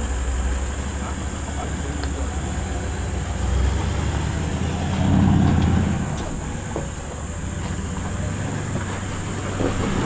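Off-road 4WD's engine running at low revs as it crawls along a rough track, with a low rumble that gets louder about halfway through.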